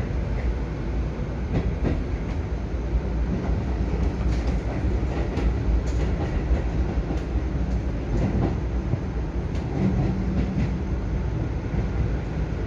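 Cabin noise of a Keio 5000-series electric commuter train running along the line: a steady low rumble with irregular clicks from the wheels on the rails.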